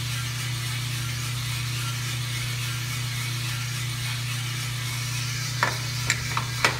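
US Roaster Corp 3-kilo drum coffee roaster running mid-roast, a steady hum with a hiss over it. Near the end come a handful of sharp metallic clicks as the sample trier is slid back into its port on the front plate.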